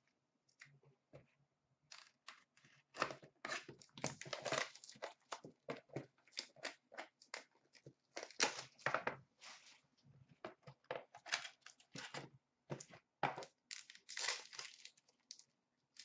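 A 2016-17 Upper Deck Ultimate hockey card box being unwrapped and opened by hand: plastic wrapping tearing and crinkling in quick, irregular bursts, with packaging rustling.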